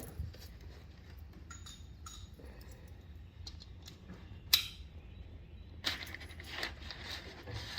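Metal hand tools clinking: a ratchet and socket being handled, with scattered small clicks and taps and one sharp click about four and a half seconds in.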